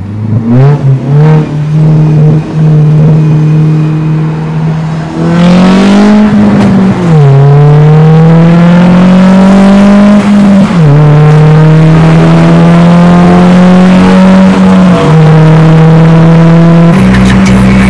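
Car engine accelerating through the gears: its pitch climbs, then drops sharply at an upshift about seven seconds in and again about eleven seconds in, and holds steadier in between.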